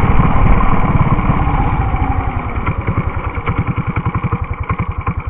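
Mini bike's small engine with its revs falling as the bike slows to a stop, the exhaust note breaking into separate firing beats that come slower and fainter toward the end.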